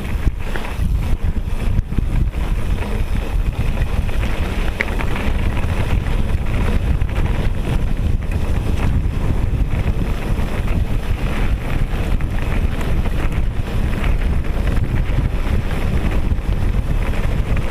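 Wind buffeting the microphone of a mountain bike riding fast downhill, mixed with the tyres rolling over gravel and loose stones and small knocks from the bike.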